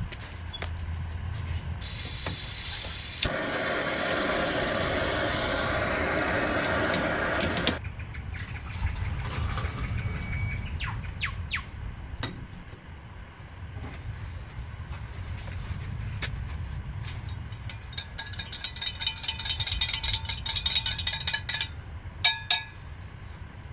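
A steady rushing hiss for about six seconds that starts and stops abruptly. Later a spoon stirs in a metal mug with rapid ringing clinks for a few seconds, then taps sharply on the rim twice.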